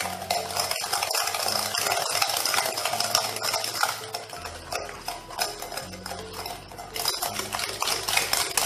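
Wire whisk beating eggs and sugar in a glass bowl: a fast, continuous clicking and scraping of the whisk against the glass. It eases off a little about halfway through, then picks up again.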